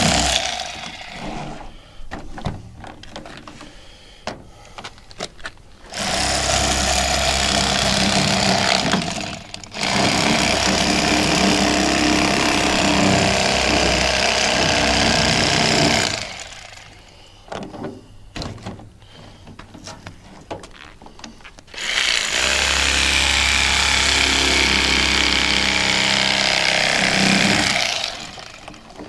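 Rapala electric fillet knife running as it cuts through a walleye, its reciprocating blades buzzing steadily. It runs four times, for a few seconds up to about six seconds each: once stopping about a second in, then again at about six seconds, ten seconds and twenty-two seconds. Between the runs come light clicks and knocks of handling.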